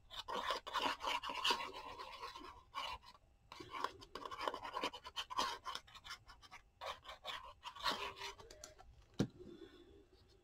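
Paper and card being handled and shuffled on a junk journal page: irregular scratchy rustles and small taps, with one sharp click about nine seconds in.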